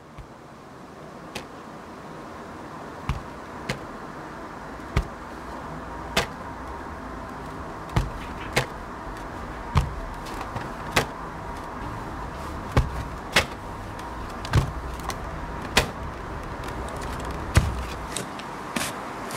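Wood lathe running with a steady hum that fades in over the first few seconds, with sharp knocks at irregular intervals, about once a second.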